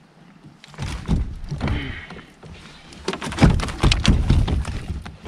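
Irregular knocks and thumps on a kayak, starting about a second in, as a landed pike is handled and unhooked on board, with low rumbling handling noise under them.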